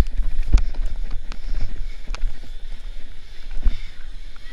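Wind and handling rumble on a body-worn action camera's microphone, with a few sharp knocks and bumps as the wearer climbs over a wooden obstacle wall; the clearest knocks come about half a second in and near the end.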